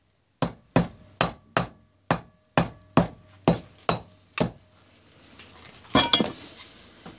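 A hammer tapping about ten times, roughly two taps a second, on the freshly fitted cylinder block of a Honda Rebel 250 parallel-twin engine, setting it down onto the crankcase. About six seconds in there is a short clatter with a brief ringing.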